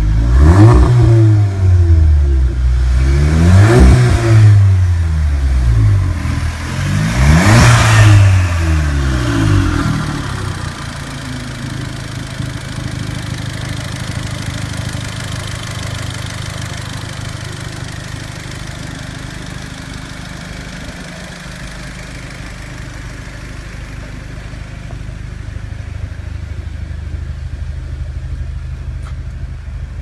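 VW Golf R Mk7.5's turbocharged 2.0-litre four-cylinder through an Armytrix valvetronic exhaust, revved three times, each rev climbing and dropping back, then settling to a steady idle after about ten seconds.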